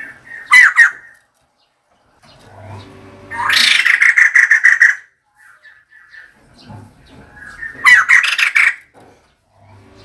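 Female white-crested laughingthrush calling in three loud bursts of rapid repeated notes: a short one about half a second in, a longer run of about a second and a half in the middle, and another about two seconds before the end.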